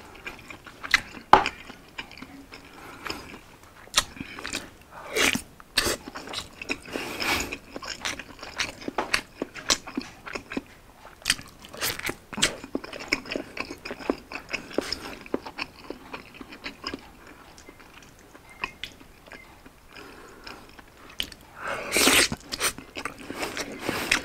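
A person biting and chewing a thick slab of Spam dipped in sauce: wet mouth clicks and smacks throughout, with a few louder bites, the loudest near the end.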